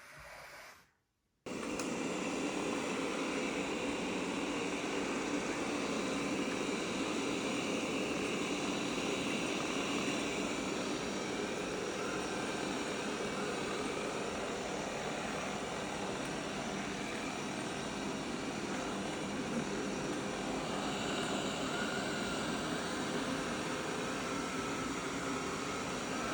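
Roborock S7 Max Ultra robot vacuum running: a steady whirring drone with a faint high whine, cutting in suddenly about a second and a half in.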